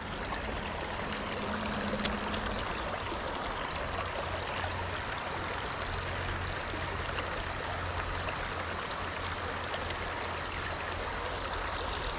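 Steady rush of flowing stream water, with a single sharp click about two seconds in.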